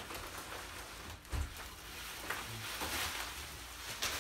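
Rustling and crinkling of a plastic bag and bubble wrap, with cardboard scraping, as a wrapped car seat is pulled out of its shipping box. A dull thump comes about a second in.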